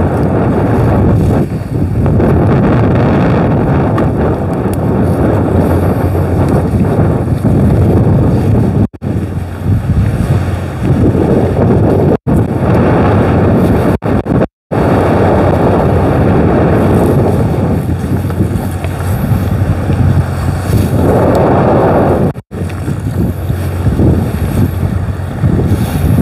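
Strong wind buffeting the microphone, with wave and boat noise aboard a small boat at sea: a loud, steady rumbling roar, broken by a few abrupt brief dropouts.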